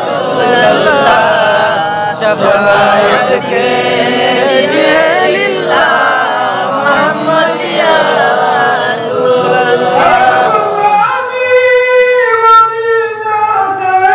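A group of men singing a milad devotional chant together, unaccompanied. About eleven seconds in, the sound thins to one clearer voice holding long, steady notes.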